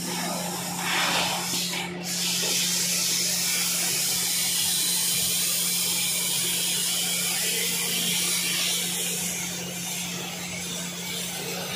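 CNC plasma cutter torch cutting thin steel sheet: a steady hiss that comes in about two seconds in and carries on, over a constant low hum.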